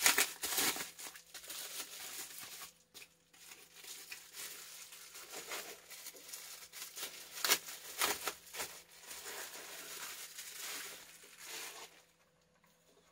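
Plastic bubble wrap being handled and pulled off a camera by hand, crinkling and crackling irregularly. It stops about a second before the end.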